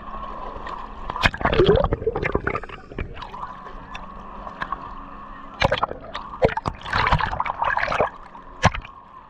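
Sea water splashing and sloshing against an action camera held at the surface while swimming, the microphone dipping in and out of the water. The splashes come irregularly, heaviest about a second in and again near the end.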